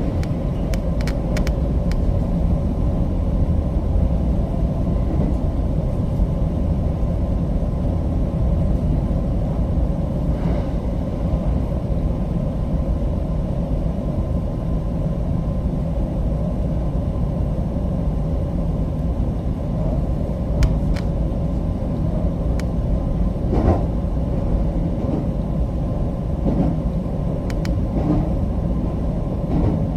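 JR West 225 series electric train running, heard from inside the car: a steady low rumble of wheels and running gear, with a few brief sharp clicks.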